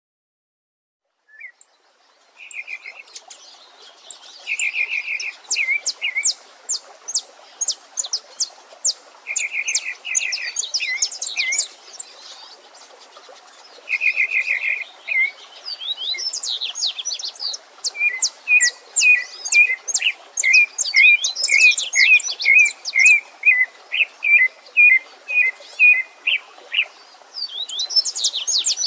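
Several wild songbirds singing at once over a faint steady murmur of running water. Some give short buzzy trills every few seconds and others high rapid chirps. From about two-thirds of the way through, one bird repeats a quick call about twice a second.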